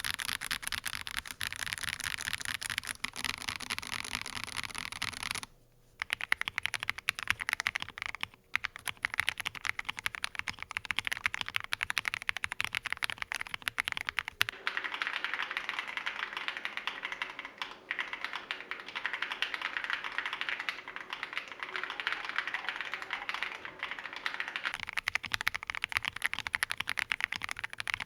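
Continuous fast typing on an Akko ACR Pro Alice Plus mechanical keyboard with lubed Akko CS Clear switches on a polycarbonate plate, rapid clicky keystrokes throughout. It stops briefly about five seconds in, where the board changes from the stock plate with Poron gasket to the modded plate, and pauses again about three seconds later.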